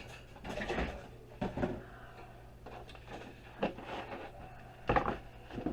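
Plastic housing parts of an infrared electric heater being handled and pried apart during disassembly: a series of irregular clacks and knocks, the loudest about five seconds in, over a steady low hum.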